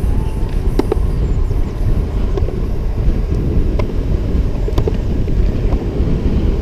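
Skateboard wheels rolling fast on a concrete run, a steady rumble mixed with wind buffeting the microphone, with a few sharp clicks here and there.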